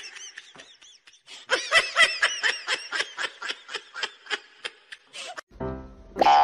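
A person giggling in quick, high, breathy bursts, about four or five a second, with a short break early on. The giggling stops about five seconds in, and music comes in near the end.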